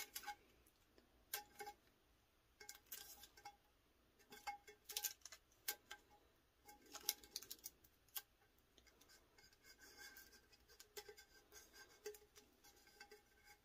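Faint handling sounds: scattered small clicks, ticks and rubs as heat tape is pressed and smoothed onto a paper-wrapped sublimation tumbler turned in the hands.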